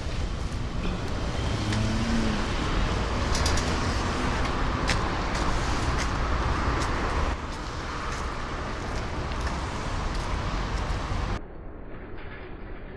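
Street traffic noise, with cars passing and scattered sharp clicks and knocks. About eleven seconds in, the sound suddenly becomes quieter and duller.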